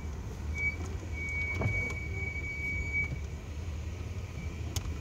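Car engine idling, a steady low rumble heard from inside the cabin, with a thin high steady tone that comes and goes and a couple of light clicks.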